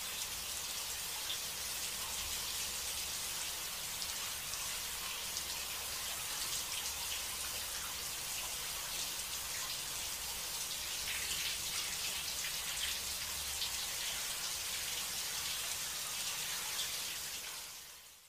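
Shower running, a steady spray of water falling, fading out near the end.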